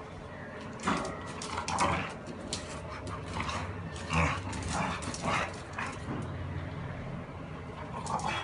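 A Labrador and a bullmastiff play-fighting, giving short, irregularly spaced dog vocalizations, about eight in all, as they wrestle.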